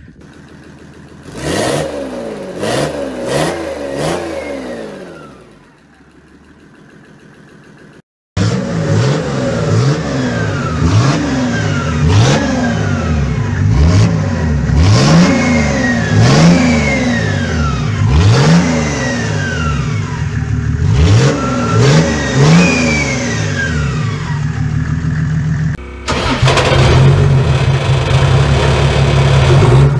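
Mercedes OM606 inline-six turbodiesel, running a Dieselmeken mechanical injection pump and an HX35W turbo, being revved again and again, each rev rising and falling in pitch, with a short break about eight seconds in. Near the end the engine is held at steady high revs.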